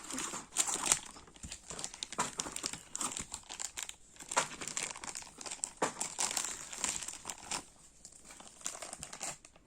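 Packaging wrapper being crinkled and torn open by hand as a Sweet Box is unpacked: a run of dense, irregular crackles that thins out near the end.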